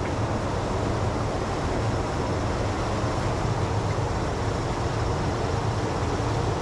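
Steady rush of flowing water in a stream channel, an even low rumbling noise with no separate events.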